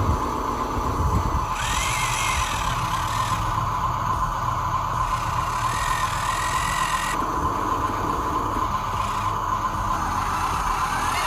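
Small electric motors and plastic gearboxes of radio-controlled toy construction vehicles whirring steadily, with a higher whine cutting in and out every couple of seconds as they are worked.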